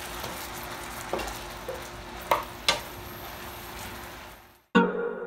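Chicken pieces sizzling in a simmering soy sauce and sugar glaze in a frying pan, stirred with a wooden spatula that knocks against the pan a few times. The sizzle fades out near the end and electronic music starts.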